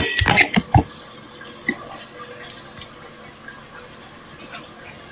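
A few short knocks and clatters in the first second, then a steady kitchen hiss.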